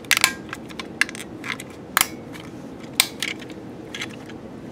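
Sharp plastic clicks and taps from a BMP21 PLUS label printer cartridge being handled and pressed in the fingers: a quick cluster of clicks at the start, then single clicks about once a second.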